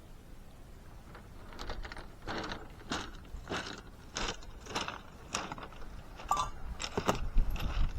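Footsteps crunching on beach shingle, a steady walking pace of a little under two steps a second, getting louder near the end.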